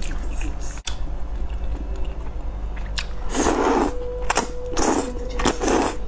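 A person eating thick noodles: quieter chewing at first, then about four loud slurps in the last three seconds as the noodles are sucked into the mouth.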